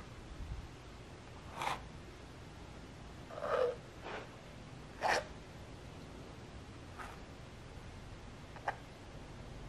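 Palette knife spreading and scraping thick acrylic paint across a stretched canvas, in about six short strokes at uneven intervals, the strongest about a third and halfway through.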